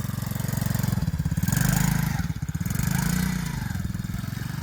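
Small 110 cc four-stroke single-cylinder engine of a children's mini ATV running under throttle. It revs up twice, about a second and a half in and again about three seconds in, and eases back between.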